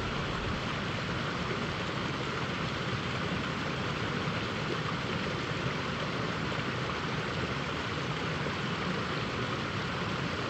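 Steady rushing of river water pouring over a small rocky cascade.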